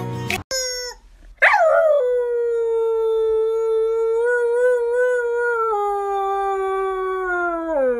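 Husky howling: after a brief higher call, one long held note that slides down at the start, stays steady for several seconds, then drops lower near the end.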